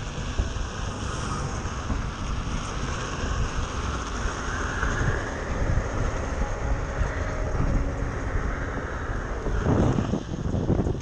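Wind buffeting the camera microphone over the rumble of a Onewheel XR's treaded tyre rolling on a street, with traffic around it, swelling louder about ten seconds in.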